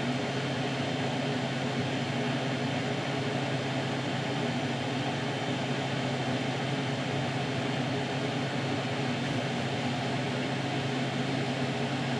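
Steady low hum with a hiss underneath, unchanging throughout: the background noise of a running appliance in a room.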